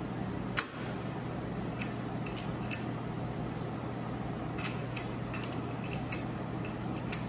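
Sharp metal clicks and clinks as an Allis-Chalmers tractor distributor shaft is slid down into its cast housing and turned by hand, the loudest about half a second in and a quick cluster around five seconds in. A steady low hum runs underneath.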